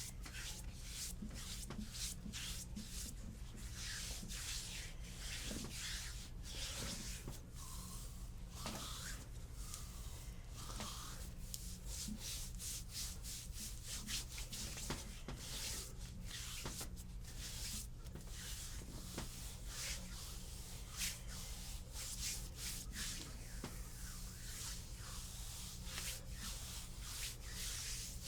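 Hands rubbing and sliding over bare skin in massage strokes: a continuous run of irregular brushing swishes over a steady low hum.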